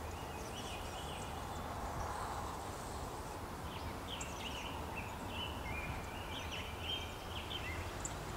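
Birds chirping in short high calls, more of them in the second half, over a steady low background rumble.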